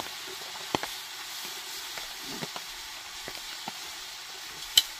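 Tortilla with American cheese frying cheese side down in a pan on a portable butane camp stove: a steady sizzle and hiss, with a sharp click a little under a second in and another near the end.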